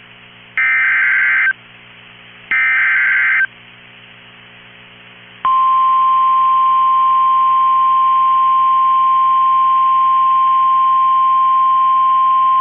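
NOAA Weather Radio EAS alert tones: the last two of three SAME header data bursts, each about a second long and a second apart, then about five seconds in the steady single-pitch 1050 Hz warning alarm tone begins and holds. The alarm tone signals that a new warning message is about to be read.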